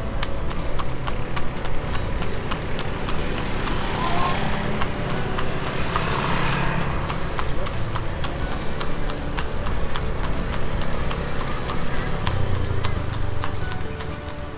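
Horse's hooves clip-clopping on an asphalt road at a trot as it pulls a wooden passenger cart, a quick, even run of hoof strikes.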